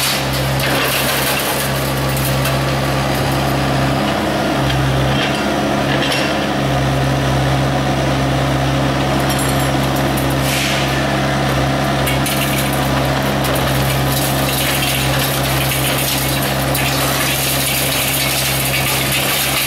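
Kubota excavator's diesel engine running steadily at working revs while its hydraulic demolition shear crushes a reinforced-concrete slab. Concrete crunching and rebar and debris clinking ride over the steady engine hum.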